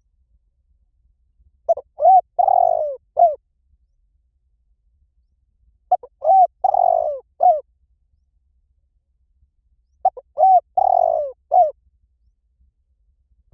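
Spotted dove cooing: three matching call phrases about four seconds apart. Each phrase is a couple of short coos, one longer drawn-out coo and a final short coo.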